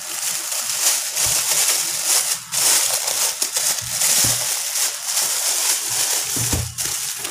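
Plastic courier wrapping crinkling and rustling as hands peel and tear it open around a parcel, with a few dull bumps of the package against the table.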